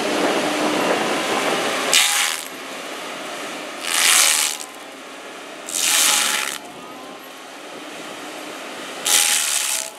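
FAE SCL/EX/VT stump grinder, its toothed cutting wheel driven by the excavator's hydraulics, grinding a tree stump down at ground level. It runs steadily, with four louder, hissing surges a couple of seconds apart as the wheel bites into the wood.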